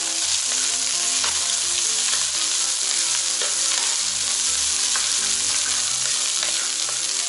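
Rice and scrambled egg sizzling in a hot wok as they are stir-fried with a wooden spatula, with a steady frying hiss and occasional light taps and scrapes of the spatula against the pan.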